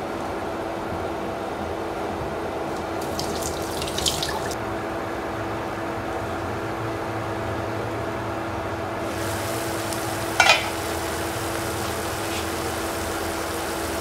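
A lidded pan of pickled rau móp stems with garlic cooking on the stove: a steady hiss of sizzling and steaming under the stainless steel lid over a constant hum, with a brief sharper sound about ten seconds in.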